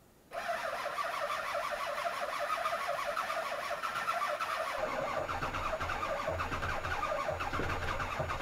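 Starter cranking a cold 2000 Ford 7.3 Power Stroke V8 turbodiesel at zero degrees Fahrenheit after it sat three weeks without its block heater plugged in. The engine catches about five seconds in and runs on with a deeper, heavier sound.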